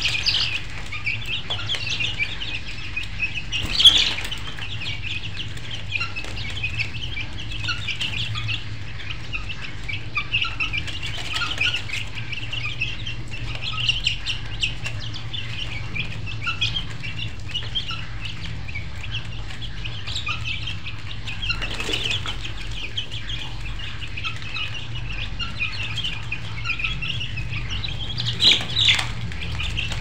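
A flock of chickens chirping and clucking continuously over a steady low hum, with brief louder flurries about four seconds in and near the end.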